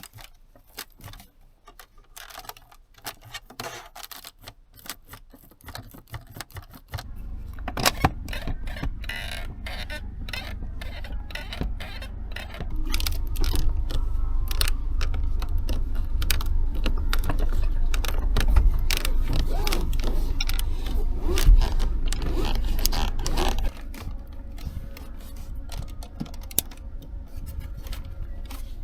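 Interior trim of a 2023 Mercedes-Benz GLC creaking and rattling in the cabin in many irregular clicks and ticks, the signs of poorly fitting interior panels. Underneath is a low rumble of the car on the road, which comes in about a quarter of the way through, grows louder before the middle and eases back near the end.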